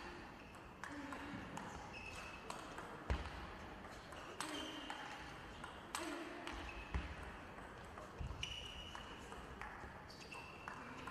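Table tennis ball being hit back and forth in a rally: sharp clicks of the ball off the rackets and table, coming irregularly about every half second.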